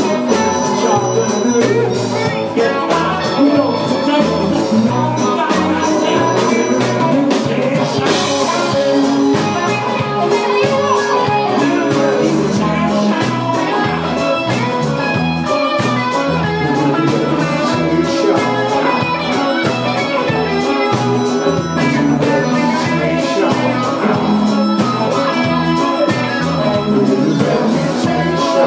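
Live band music: a man singing lead over electric guitars and a drum kit, played continuously at a steady level.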